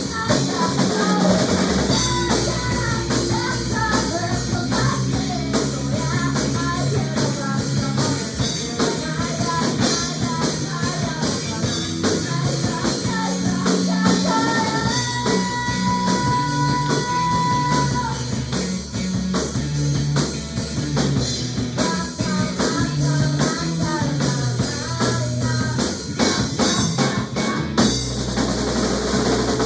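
Rock music with a driving drum kit, bass and guitar, and a held melodic note midway.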